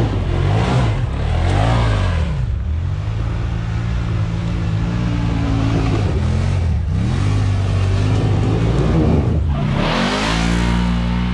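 Side-by-side UTV engines revving as the machines power up a snowy hill. The engine pitch dips and climbs several times, holds steadier through the middle, then rises sharply about ten seconds in.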